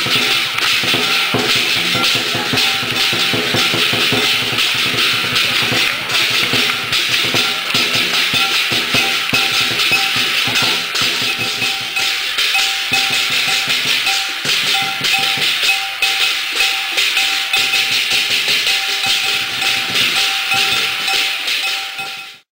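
Fast percussion music: rapid drumming with clanging metal percussion and a ringing tone over it, cutting off sharply near the end.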